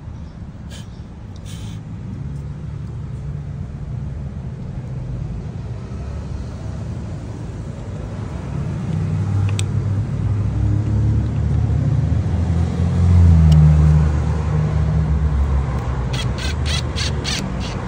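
Low rumble of a motor vehicle, building to its loudest a little past the middle and then easing, with a quick run of about six clicks near the end.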